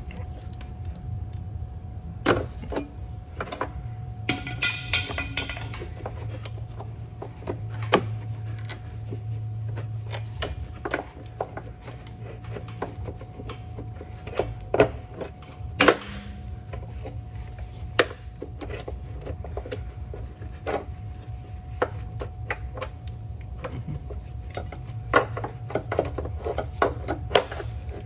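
Irregular clicks, taps and knocks of metal parts and tools handled while the outer part of a driveshaft carrier bearing support is worked free, with a brief ringing about five seconds in and a denser run of clicks near the end, over a steady low hum.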